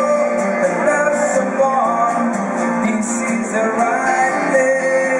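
Live rock band playing through a concert sound system, an instrumental passage with strummed guitar and a sliding melody line over a steady beat.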